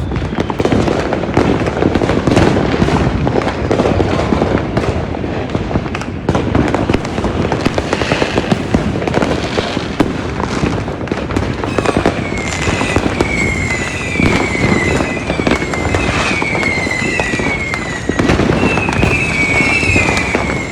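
Firecrackers and fireworks going off nonstop all around: dense, overlapping pops and bangs with no break. About twelve seconds in, a high falling whistle starts repeating roughly once a second over the bangs.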